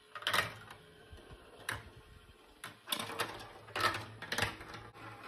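Plastic marbles rolling and clattering through a VTech plastic marble run, in irregular runs of sharp clicks and rattles. A low steady hum comes in about three seconds in.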